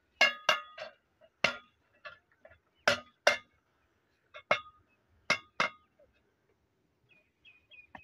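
About a dozen sharp metallic clinks and knocks, ringing briefly and often coming in quick pairs, from the iron parts of a hand pump being fitted back together after its valves were replaced.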